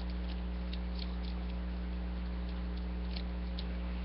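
Steady electrical mains hum over a constant hiss, with a few faint light clicks of plastic toy parts being handled.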